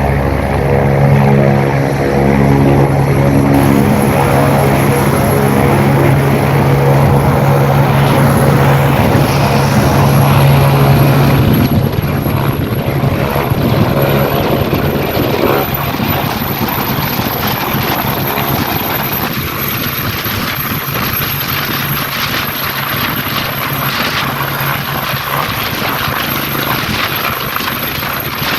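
Air ambulance helicopter running, its rotor and turbine engines loud and steady, with a thin high turbine whine slowly rising in pitch. The sound changes abruptly a few times, and it grows somewhat quieter in the second half.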